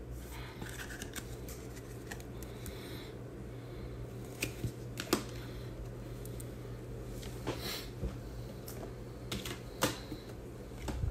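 Trading cards being handled: soft slides and rustles with scattered sharp clicks, over a steady low hum.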